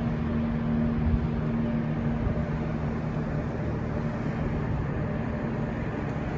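Steady low hum of a cruise ship under way, over an even rushing wash of wind and water noise.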